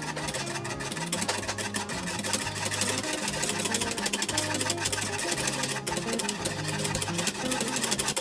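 Wire whisk beating a chocolate milk filling in a metal saucepan, a rapid, continuous stream of clicks and scrapes against the pot as the filling cooks and thickens.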